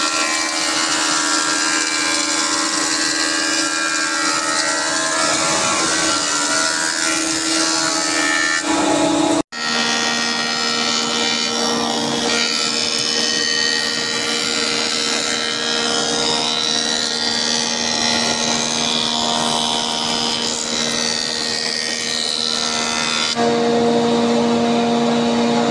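Woodworking planer-thicknesser running with a steady hum and the noise of its cutters planing wooden battens fed through it. There is a brief break about nine seconds in, after which the hum sits at a different pitch.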